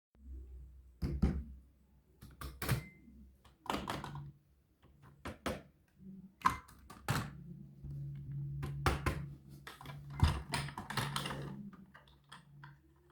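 A dozen or so irregular sharp knocks and clicks, some with a short rattle, over a low steady hum that grows stronger from about seven seconds in.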